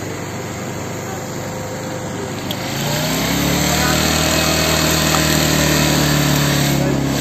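Street noise with faint voices, then, from about two and a half seconds in, an engine running steadily at an even pitch.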